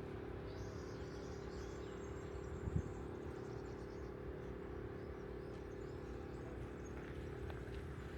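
Outdoor park ambience: faint bird chirps over a steady low hum and rumble, with a single short thump a little under three seconds in.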